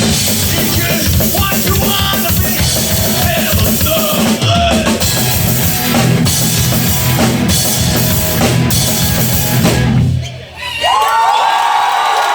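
Hardcore punk band playing live: loud drum kit with bass drum, distorted guitars and bass. The song ends together with a sudden stop about ten seconds in, then shouts and cheering from the audience start.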